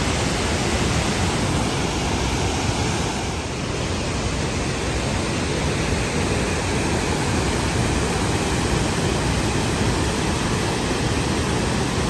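Waterfall and river rapids rushing steadily, a continuous even wash of falling water at constant level.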